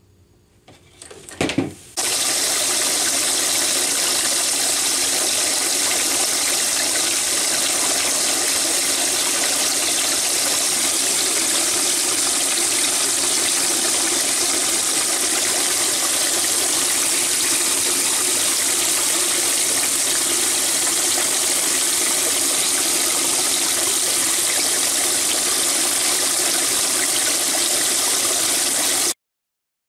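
Water jetting from a homemade PVC spray bar with drilled holes and splashing into a freezer minnow tank, pumped up from a submersible pump in a filter bucket to aerate the water. A steady rushing splash starts abruptly about two seconds in, after a couple of brief knocks, and cuts off just before the end.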